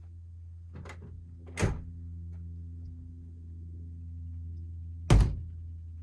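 Pickup truck's camper-shell rear hatch and tailgate being shut: a light knock about a second in, a sharper thunk soon after, and a loud, deep slam near the end.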